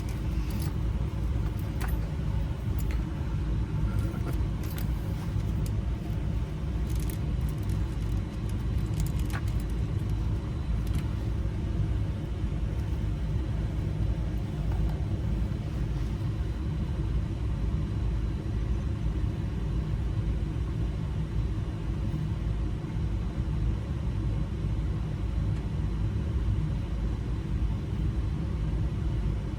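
Steady low rumble of an idling vehicle engine, with faint small metallic clicks during the first ten seconds or so as tiny springs and wafers are fitted into a lock cylinder.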